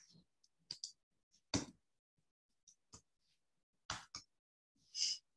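Faint, irregular clicks of a computer being worked, about six separate taps spread over a few seconds, with a short breathy hiss near the end.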